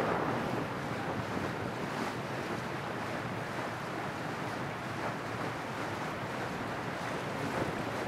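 Steady rush of wind on the microphone and water along the hull of a boat under way.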